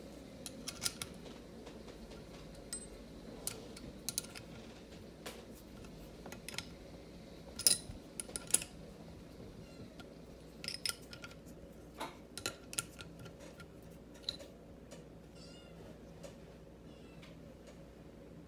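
Sharp metallic clicks and taps of a wrench on the float-bowl bolts of a Holley 4412 two-barrel carburetor as the bolts are loosened and turned out. The clicks come irregularly and are loudest about eight seconds in. Near the end there are a few faint wavering squeaks.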